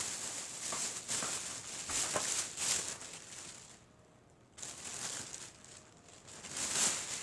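Rustling and handling noises in uneven spells, with a few faint knocks and a brief lull about four seconds in.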